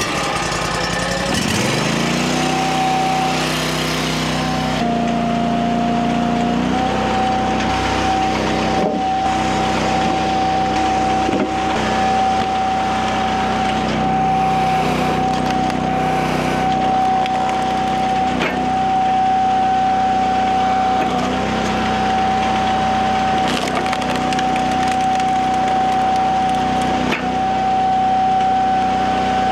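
Eastonmade 22-28 log splitter's engine starting and spinning up to speed over the first couple of seconds, then running steadily with a high whine. Its pitch dips briefly every two to three seconds while rounds are split, with wood cracking and splintering.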